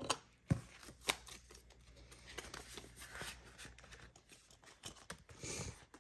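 Paper banknotes being handled and slid into a cash envelope: faint papery rustling, with a few sharp taps in the first second or so.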